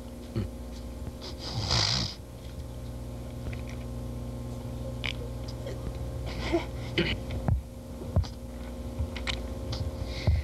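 A man weeping into a microphone: sniffing and catching his breath in short ragged bursts, the loudest about two seconds in and several more through the second half, over a steady electrical hum.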